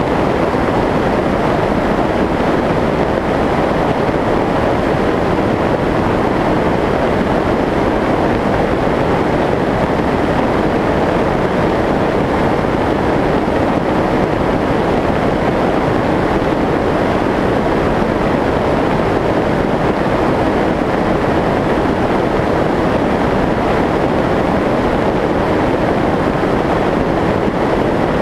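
Steady rushing airflow noise of a Skyshadow S800 FPV flying wing in cruise, picked up by its onboard camera as air streams past the airframe. It is loud and even, with no change in pitch or level.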